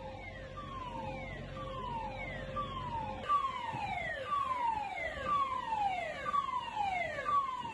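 A siren wailing in a repeating falling sweep, each sweep dropping from high to lower pitch about once a second, with a steady tone underneath.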